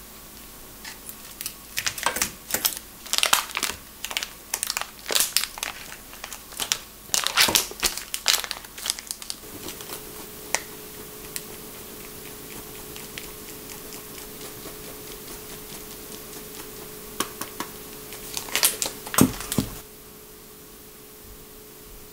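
Plastic cheese wrapper crinkling and crackling as it is cut and peeled open, in dense sharp bursts for about nine seconds. Then quieter fine scraping of hard cheese on a hand grater over a faint steady hum, with a short loud burst of crinkling near the end.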